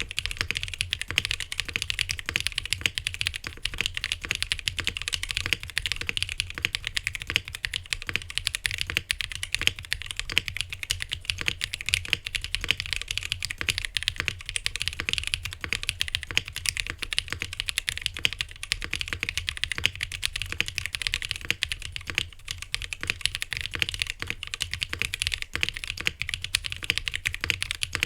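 Fast, continuous typing on a custom mechanical keyboard: a Glorious GMMK Pro with lubed NovelKeys Cream linear switches, PE foam under the switches, an aluminium plate and GMK keycaps. Keystrokes follow one another without a break.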